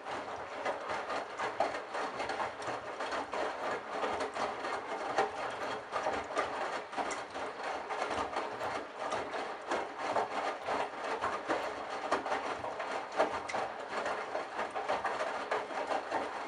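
Candy washing machine's drum starting to turn after a pause, the wet towels tumbling with a dense, uneven rustling and knocking.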